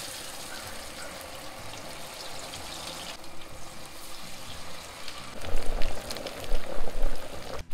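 Beer-battered cod pieces sizzling as they are dropped into hot oil in a deep-fry pot, a steady hiss of bubbling oil. From about two thirds of the way in, low bumps and knocks come in over the sizzle.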